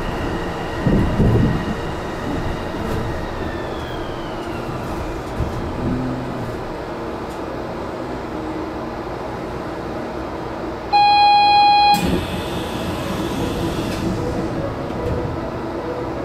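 Port Liner automated rubber-tyred train slowing to a stop: its high motor whine glides down in pitch and fades, leaving a steady low rumble. About eleven seconds in, a single one-second electronic beep sounds, followed by a short hiss.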